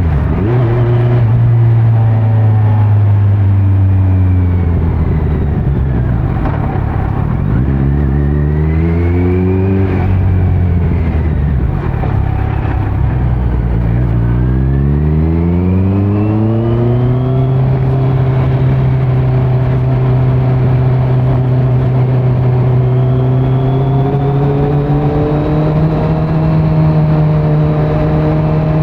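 Kawasaki Z900's inline-four engine through a Leo Vince muffler with no dB killer, heard from the rider's seat while riding. The revs fall away at the start, climb twice in long pulls, then settle into a steady cruise with a slight rise near the end.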